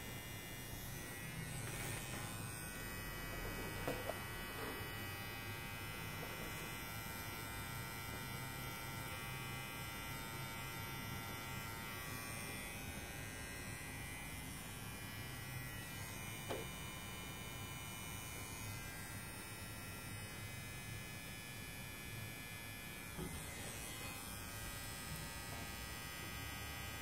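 Permanent-makeup tattoo pen motor buzzing steadily as its needle works pigment into eyebrow skin, with a few faint clicks.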